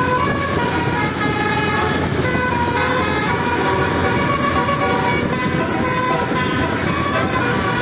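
A bus's Basuri telolet horn, a multi-tone musical horn, playing a running tune of short stepped notes over a steady low rumble of vehicle noise.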